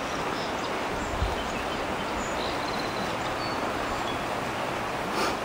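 River current rushing steadily over shallow rocks and riffles.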